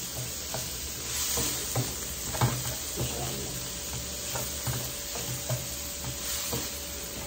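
Chopped vegetables sizzling in a non-stick wok while a wooden spatula stirs them, with irregular scrapes and light taps against the pan over a steady low hum.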